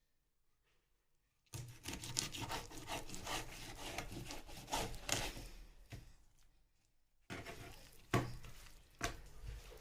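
Knife sawing and scraping through a chicken leg quarter to part the thigh from the drumstick: a dense run of rasping and rubbing that starts about a second and a half in and fades, then a second bout of cutting with a couple of sharp knocks near the end.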